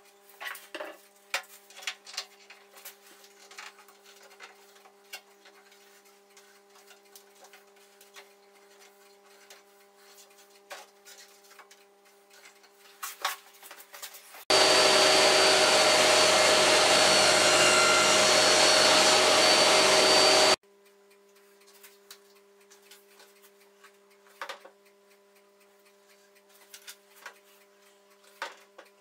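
Scattered clicks and knocks of pine boards and steel bar clamps being handled as glued shelf joints are clamped. About halfway through, a loud steady motor noise with a high whine runs for about six seconds and cuts off abruptly.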